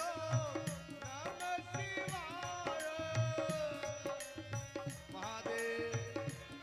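Devotional kirtan music: a harmonium holds a melody over a steady tabla beat in keherwa rhythm. A wordless sung line bends and wavers in pitch above it.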